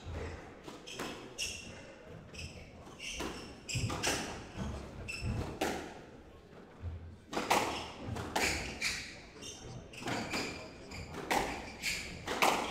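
Squash rally: the ball cracks off rackets and thuds against the court walls about once a second, with sports shoes squeaking on the wooden floor between shots.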